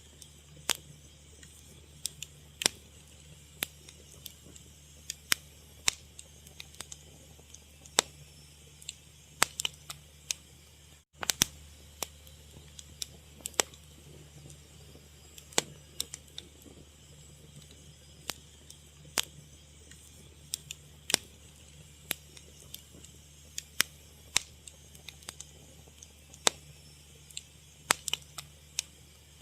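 Wood fire crackling: irregular sharp pops and snaps over a faint steady hiss and low hum, with a brief break in the sound about eleven seconds in.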